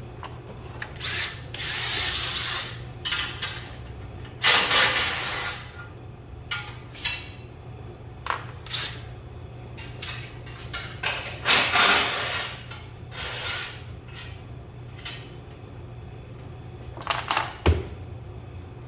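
Handheld power drill or driver run in short bursts, its motor whining up and down three or four times, with scattered metallic clicks and knocks in between.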